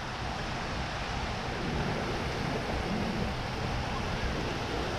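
Steady wash of small surf breaking on a sandy beach, with wind on the microphone.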